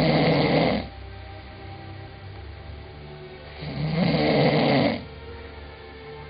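A sleeping person snoring loudly: one snore ending about a second in and another from about three and a half to five seconds in, roughly four seconds apart.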